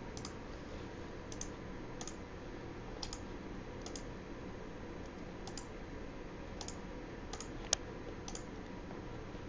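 Scattered single clicks of a computer mouse and keyboard, about ten of them at irregular intervals, one sharper than the rest about three-quarters through, over a faint steady hiss.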